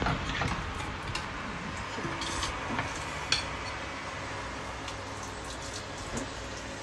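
Light clinks and scrapes of kitchen utensils against dishes or a pan, a few sharp ones in the first three and a half seconds, over a steady hiss.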